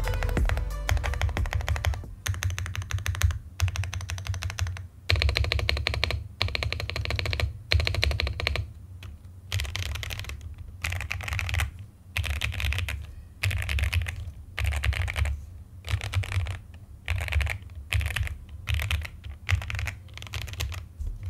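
Fast typing on a Kzzi K98 mechanical keyboard with factory-lubed linear Poseidon switches, its keys clacking in quick runs of about a second each with short pauses between them.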